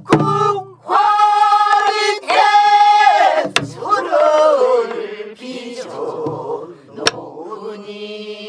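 A group of voices singing a Namdo folk song together in long held notes, some bending in pitch. Sharp strokes on a buk barrel drum mark the beat about every three and a half seconds.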